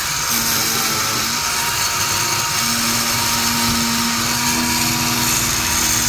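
Chainsaw running at full speed, its chain cutting down through a thick pine trunk, with a steady pitch throughout the cut.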